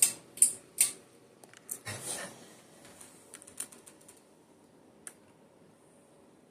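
Ceiling fan pull-chain switch clicking as the speed chain is pulled to set the fan on low: three sharp clicks in the first second, then a few lighter ticks. A faint steady hum follows.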